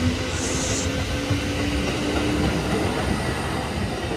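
Kintetsu 1010 series electric train passing through the station at speed close by: a steady rolling rumble of wheels on rail with a faint, slowly rising whine. A brief hiss comes about half a second in.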